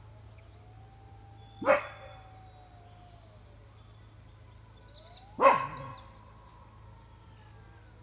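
A dog barking twice, two single loud barks about four seconds apart, over faint bird chirps and a steady low hum.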